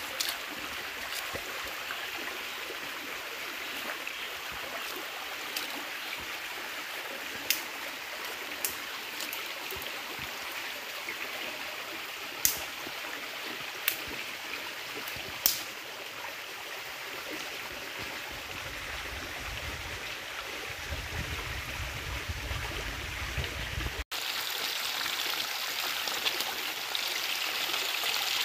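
River stream running steadily, with a few sharp clicks of a small knife slicing a red onion held in the hand. Near the end the sound turns to a brighter, louder hiss of fish frying in oil in a pan over a wood fire.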